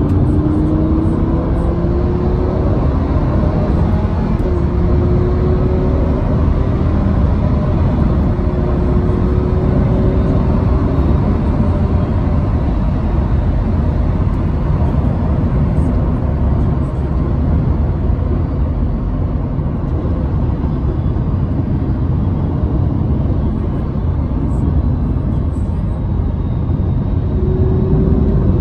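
Lamborghini Huracán's V10 engine heard from inside the cabin while driving at speed, under a heavy low rumble of road and engine noise. The engine note climbs slowly in a few long stretches through the first twelve seconds or so, and rises again near the end.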